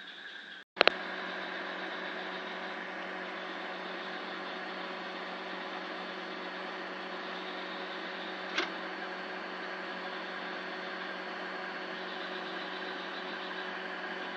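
Egg incubator's electric fan running with a steady hum. There is a sharp click just under a second in and another short click about eight and a half seconds in.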